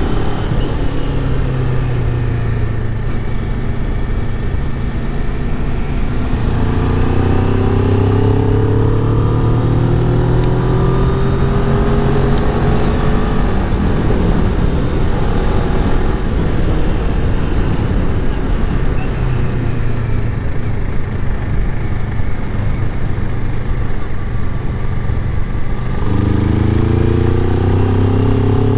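Kawasaki Ninja 400's parallel-twin engine pulling uphill under load, its pitch rising several times as it accelerates, most sharply near the end, over a steady rush of wind noise.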